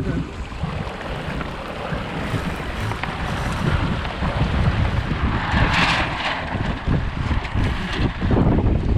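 Wind buffeting the microphone of a tiller-mounted GoPro on a Flying Scot sailboat under way, over the rush of water along the hull, with a brief louder hiss about six seconds in.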